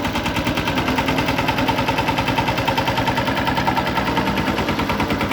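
Small road roller's engine running steadily with a rapid, even pulsing beat.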